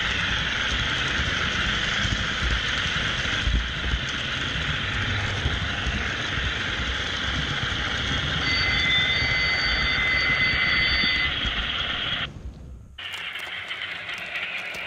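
HO scale model train running on track, heard close up from a camera car on the train: a steady, dense rattle of wheels and motor. About eight seconds in, a steady high tone sounds for about three seconds. Near the end the sound cuts off and turns to a quieter trackside recording of the train with light clicks.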